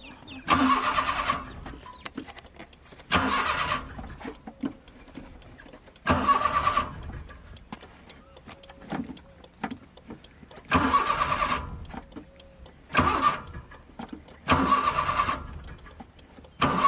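A car's starter motor cranking in seven short bursts of about a second each, with pauses between. The engine does not catch and run after any of them: a car that won't start.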